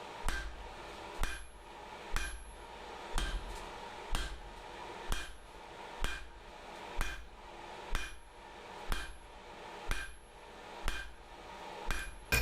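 Blacksmith's hand hammer striking hot steel on an anvil at a steady pace of about one blow a second, each blow ringing briefly, while drawing out stock for a pair of tongs.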